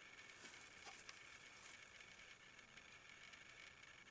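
Near silence: faint steady hiss of room tone, with a few faint soft ticks in the first half from the lenses being handled.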